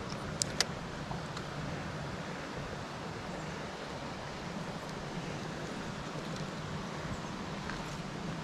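Steady rush of a shallow mountain trout stream running over rocks, with two sharp clicks about half a second in.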